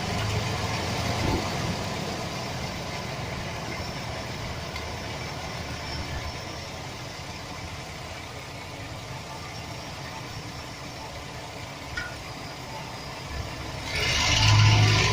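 Chevrolet Express 4.3 L V6 engine idling with a rattle, which the owner puts down to a bad starter motor gear bumping against the flexplate. It gets much louder about a second before the end.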